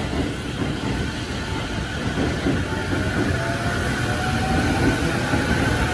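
JR East E231-series electric commuter train pulling out, its inverter-driven traction motors whining in a slowly rising pitch as it picks up speed, over the rumble of wheels on rail.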